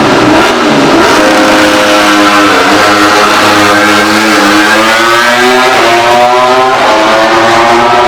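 MotoGP racing motorcycle engine accelerating hard through the gears: the pitch climbs, drops suddenly at each upshift, and climbs again, twice in a few seconds.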